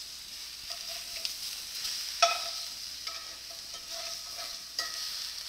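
Pork sausage patties sizzling in a cast iron skillet while being flipped with a metal spatula, which clinks against the pan, loudest about two seconds in and again near the end.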